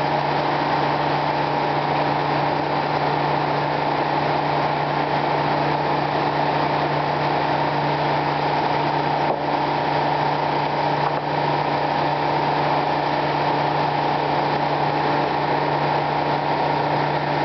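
Circular sawmill machinery running steadily with no cut heard: an even drone with a constant hum that does not change.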